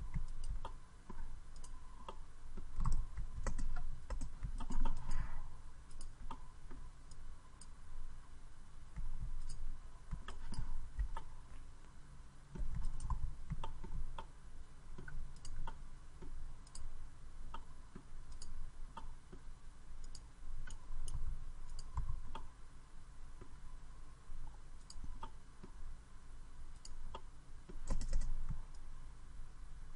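Irregular, scattered clicks of a computer mouse and keyboard as a 3D model is edited, with a few soft low thumps among them.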